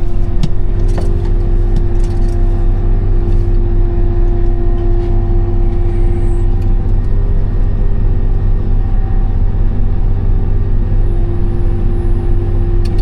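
Case IH 8120 combine running steadily while it drives slowly, a constant low rumble with a steady whine over it.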